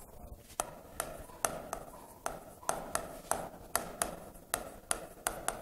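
Pen tip tapping and clicking against the glass of an interactive display board while handwriting, a quick irregular string of light taps, about three or four a second.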